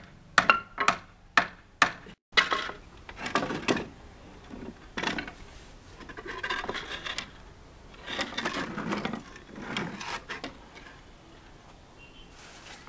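Quick hammer strikes driving nails into a wooden chair frame, about three a second, stopping about two seconds in. Then wooden boards and the frame are handled, scraping and knocking against each other in short rough bursts.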